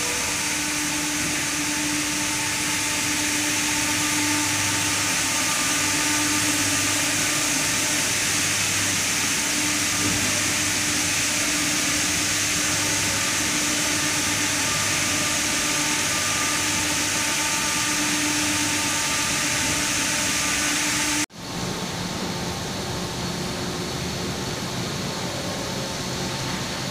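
Automatic bus-wash gantry running on a bus: rotating brushes and water spray give a loud, steady hiss over a low, even machine hum. About 21 seconds in the sound breaks off abruptly and resumes as a duller, steadier noise with less hiss.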